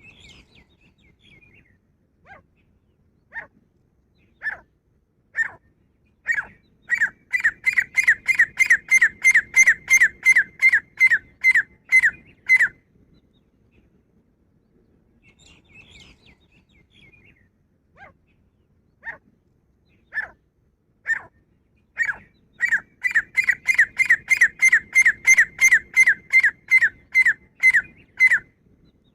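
Grey francolin calling: two bouts of loud, sharp repeated notes. Each bout starts with single notes a second or so apart and speeds into a fast, even run of about three notes a second, which stops abruptly. Faint higher chirps come between the bouts.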